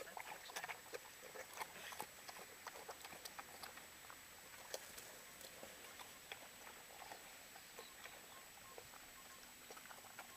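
Pigs chewing and nosing through grass at close range: rapid small crunching and smacking clicks as they eat scattered carrot pieces, busiest in the first few seconds and thinning out after.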